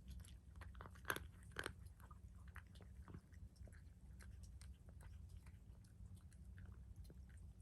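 A cat chewing food: irregular, crisp bites, the loudest in the first two seconds, then fainter and quicker.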